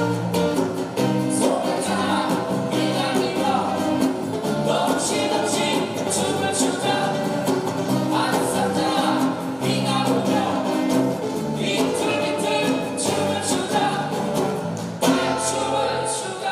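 Live acoustic band music: strummed acoustic guitars, bass guitar and djembe, with singing.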